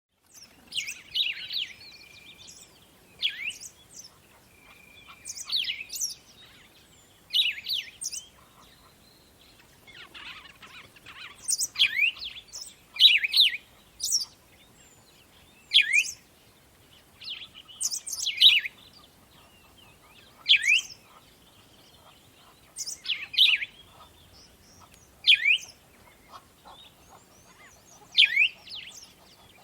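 Songbirds singing: short, bright phrases of quick rising notes, repeated about every two seconds.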